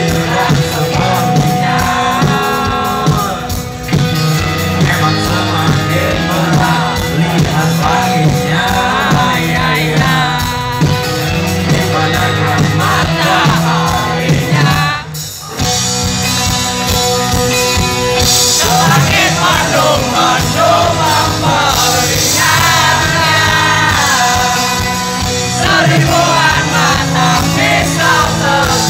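Rock band playing live: electric guitars, bass, drums and a lead singer over a festival PA, loud and heard from within the audience, with a brief break in the music about fifteen seconds in.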